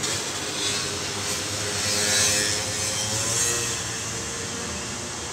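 A motor vehicle passing by, its engine hum and hiss swelling to a peak about two seconds in and then fading.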